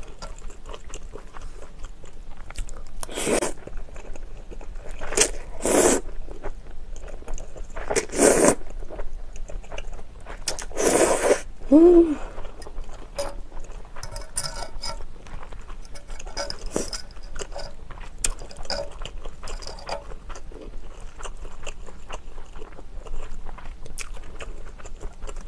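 Close-miked eating of cream pasta with spaghetti and glass noodles: about five short noodle slurps spread over the first eleven seconds, with chewing and small fork clicks between them. A short hummed "mm" comes about 12 s in.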